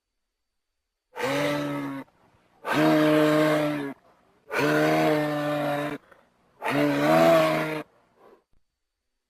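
Parasaurolophus dinosaur call sound effect: four long, even-pitched, low calls in a row, each about a second or more, with short pauses between them.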